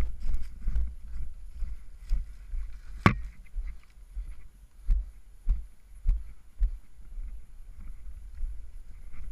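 Footsteps walking over dry leaves and gravel, each step a dull thud, about two steps a second. A single sharp crack, the loudest sound, comes about three seconds in.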